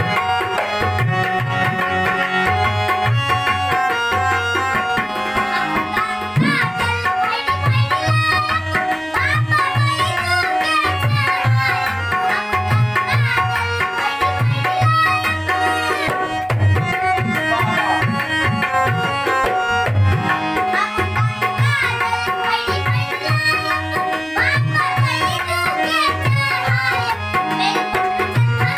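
A dholak beaten in a quick, steady rhythm under sustained harmonium chords, accompanying a Maithili nachari (a devotional song to Shiva), with a singing voice joining in places.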